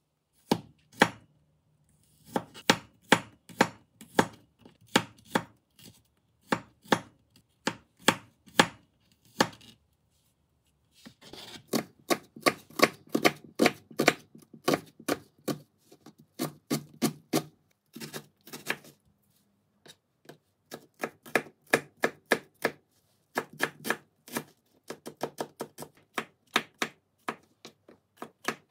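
Knife chopping on a cutting board in runs of steady strokes, about two to three a second, with short pauses between runs.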